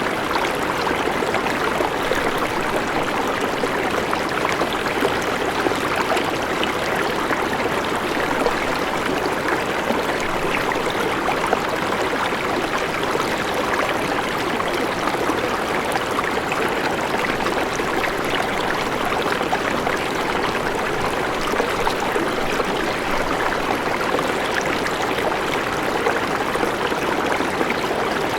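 River water running over rocks, a steady rush with constant small splashes and trickles.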